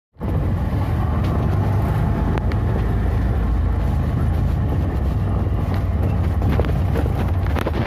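Auto-rickshaw's small engine running as it drives, heard from inside the open passenger cabin: a steady low rumble with a few brief clicks.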